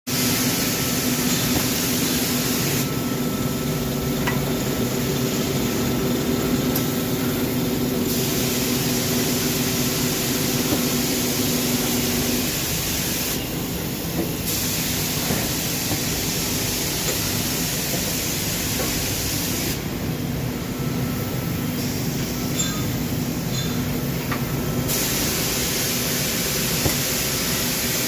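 Automatic bushing-painting machine running: a loud, steady spray hiss over a motor hum. The hiss dulls for a few seconds three times, and the hum drops away about halfway through.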